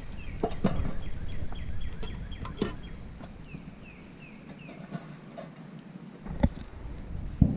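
A small bird repeating short falling chirps in quick runs. A low rumble runs underneath, and a few sharp knocks or clicks come through, the loudest two near the end.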